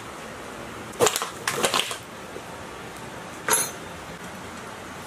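Metal tools and parts clinking and knocking on a workbench beside a rusty diesel engine block: a couple of clatters about a second in, a short run of clinks just after, and one sharp metallic clink about three and a half seconds in.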